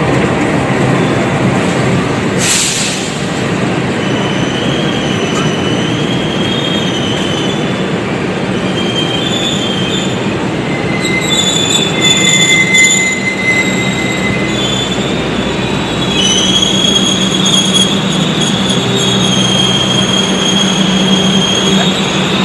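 Passenger train coaches rolling slowly along the platform, steel wheels squealing in high tones that come and go over a steady rumble, as the train slows nearly to a stop. A short hiss comes about two and a half seconds in.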